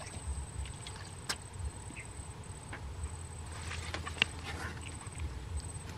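Faint rustling and scattered light clicks from a person moving through tall swamp grass, over a low rumble, with one sharper click about four seconds in.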